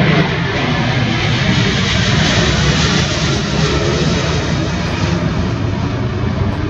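Airbus A330 airliner's twin jet engines at takeoff power as it climbs out low overhead: loud, steady jet noise that eases slightly toward the end.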